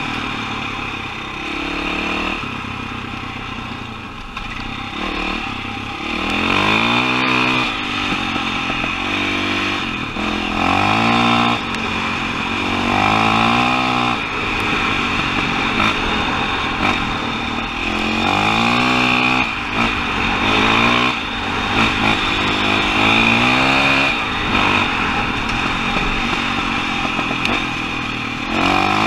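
KTM 525 XCW dirt bike's single-cylinder four-stroke engine under way, its pitch rising and falling again and again as the throttle is opened and closed.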